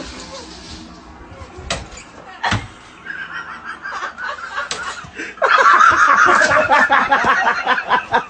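People laughing, loud from about five seconds in, with two sharp knocks a little before that.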